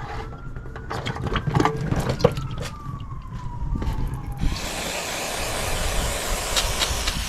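A siren wails faintly in the background, its pitch slowly rising and then falling, while tools and parts click and knock. About halfway through, a steady hiss starts and continues.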